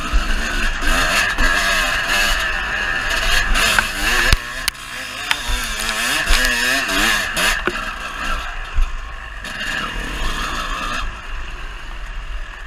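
Dirt bike engine revving up and down under load as it climbs a loose sand slope, the pitch rising and falling repeatedly; the engine noise drops back near the end.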